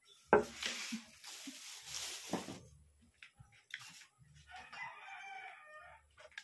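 A sharp knock just after the start, then about two seconds of rustling, crackling noise as bread is handled and torn. About four and a half seconds in, a rooster crows once.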